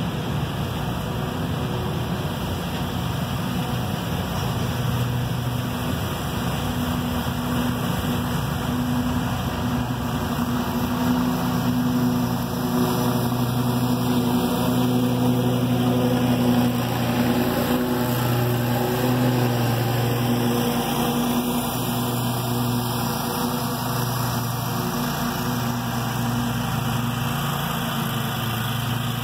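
Scag Tiger Cat II zero-turn mower mowing, its engine running steadily. It grows louder as the mower passes close by about halfway through, then fades as it drives away.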